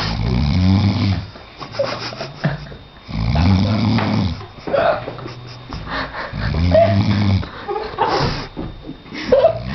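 A person snoring loudly in deep sleep, giving a long rasping snore about every three seconds, three in all.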